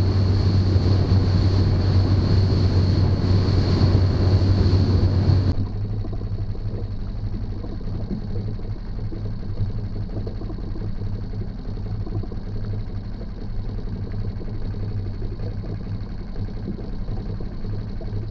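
Small outboard motor running at speed on an inflatable boat, with rushing water and wind; this cuts off abruptly about five seconds in. After that, a quieter steady low hum with fast, fine mechanical ticking from a fishing reel being wound.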